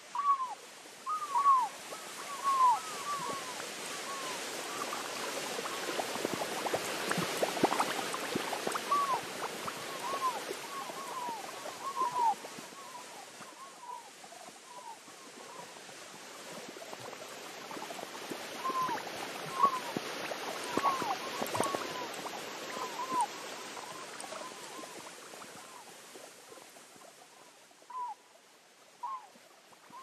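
Synthesized nature soundscape built from simple sound waves: runs of short, downward-sliding animal-like chirps over a water-like rushing hiss that swells and fades twice, with scattered clicks.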